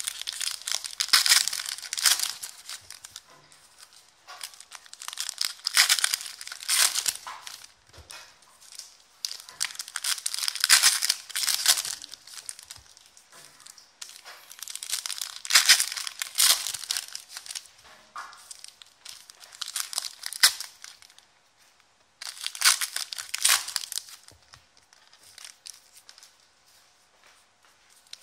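Foil trading-card pack wrappers being torn open and crinkled by hand, in about six crisp bursts a few seconds apart.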